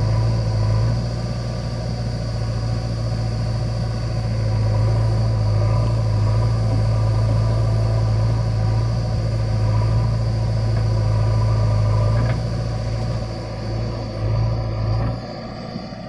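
Diesel engines of a JCB 3DX backhoe loader and a tractor running close by: a steady low drone that dips about twelve seconds in and drops again near the end.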